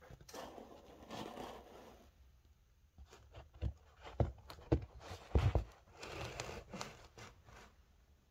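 Handling noise: rustling and scraping against fabric upholstery, with a cluster of sharp knocks and taps in the middle, the loudest about five and a half seconds in, then more rustling.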